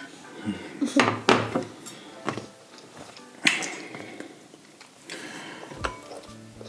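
Dishes and eating utensils clinking and knocking during a meal: a few separate sharp clicks, with a short noisy scrape about three and a half seconds in.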